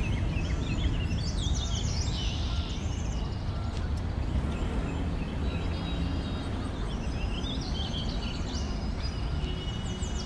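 Birds chirping in short repeated calls over a steady low rumble of outdoor background noise.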